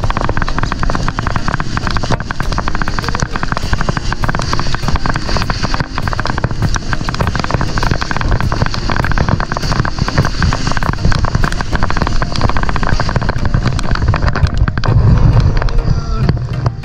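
Sled sliding downhill over snow: a loud, continuous scraping rush full of crackles, with a heavier low rumble near the end.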